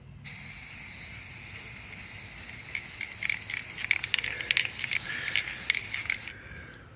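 Paint spray gun spraying in one steady hiss that starts at once and cuts off about six seconds in, with crackling over its second half.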